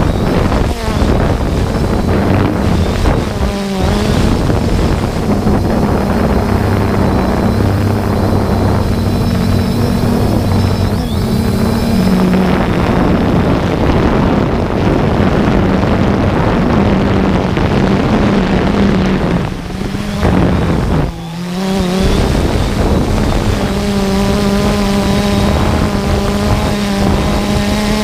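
3DR Solo quadcopter's electric motors and propellers running in flight, a steady buzzing hum whose pitch wavers as the motors change speed, with wind buffeting the microphone. Heard close up from the camera carried on the drone; the sound drops briefly about two-thirds of the way through.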